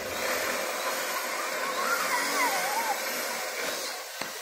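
An electric power drill runs steadily for about four seconds and then stops. A short warbling whistle sounds in the middle, and a single sharp click comes near the end.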